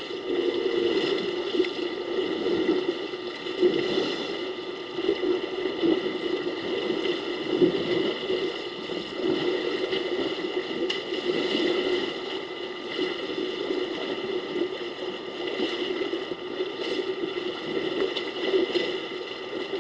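Water sloshing and splashing as a herd of African elephants wades and rolls in a waterhole, uneven in loudness, over a steady hum.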